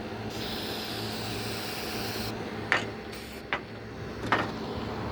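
Aerosol spray paint can spraying in one steady hiss for about two seconds, followed by three short clicks.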